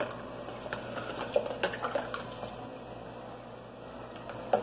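A spoon stirring a drink in a plastic pitcher: liquid sloshing, with scattered light clicks of the spoon against the pitcher and a sharper knock near the end.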